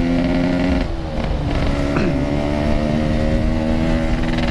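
Yamaha RX-King's two-stroke single-cylinder engine running under way through a loud aftermarket 'packing power' exhaust. It eases off briefly about a second in, then its pitch falls and holds steady from about two seconds in.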